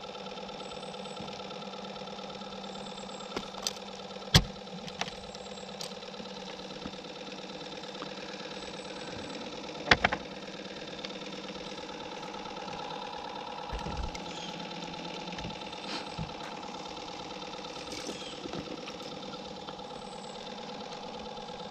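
Steady hum of a small motor, with a few sharp knocks, the loudest about four and ten seconds in.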